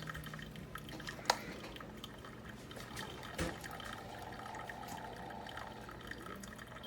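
Instant Pot Solo single-serve coffee maker brewing: faint trickling and dripping of liquid, with two small clicks. The pod is poorly seated, so the punched slot is wide and lets the coffee spill out.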